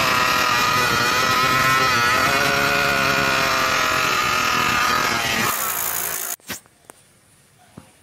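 Motorized bicycle's small frame-mounted engine running steadily, its pitch wavering slightly, then cut off abruptly about six seconds in, leaving quiet with a few faint clicks.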